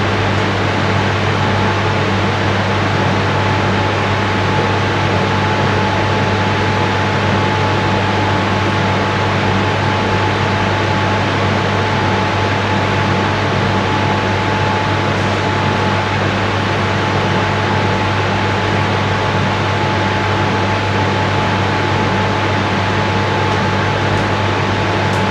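Spray-painting equipment running steadily: a continuous hiss over a low mechanical hum, with a faint high steady whistle, unbroken throughout.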